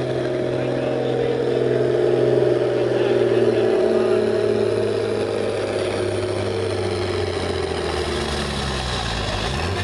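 International Harvester farm tractor's engine working under load while pulling a weight-transfer sled. It makes a steady drone whose pitch steps down about four seconds in and sinks further near the end, the engine lugging down as the sled drags harder.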